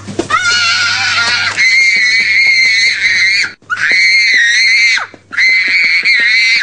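A young child screaming in a tantrum: long, high-pitched shrieks, three of them, broken by two short pauses.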